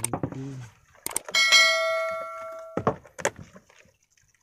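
Subscribe-button sound effect: a couple of quick mouse clicks, then a bell ding that rings steadily for about a second and a half and cuts off abruptly.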